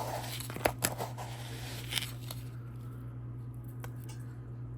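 A metal or plastic measuring cup scooping granulated sugar from a plastic container, with a few sharp clicks and knocks and a gritty rustle in the first two seconds. A steady low hum runs underneath.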